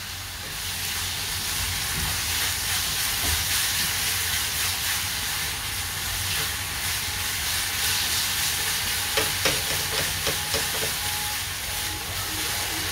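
Grated apple and melting jaggery sizzling in ghee in a nonstick kadai while a silicone spatula stirs and scrapes through the mixture. A few light clicks of the spatula against the pan about nine to eleven seconds in.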